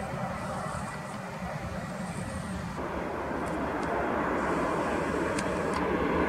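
A low rumble, then an abrupt change about three seconds in to the steady jet engine noise of a Boeing 737 airliner on final approach, growing louder as it comes closer.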